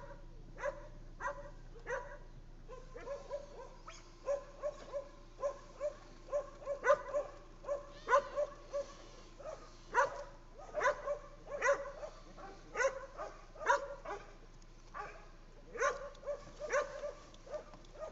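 Stray dog barking over and over: short, sharp barks coming in irregular runs, at times two or three a second.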